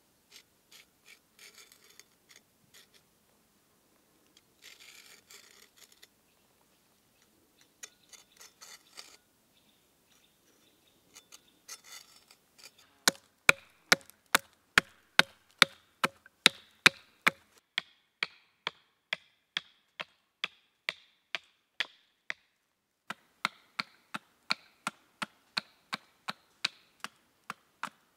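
Short rubbing strokes of a wooden-handled knife blade being honed on a small sharpening block, in several brief runs. Then, from about halfway, a hatchet chopping wood on a stump block about twice a second, with a short pause near the end.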